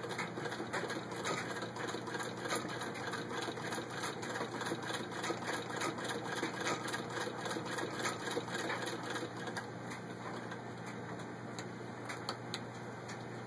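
Antique 1913 White Rotary sewing machine head, turned by hand at the handwheel, stitching through six layers of denim: a steady run of mechanical clicks, about two or three stitches a second. The stitching stops about ten seconds in, leaving only a few separate clicks near the end.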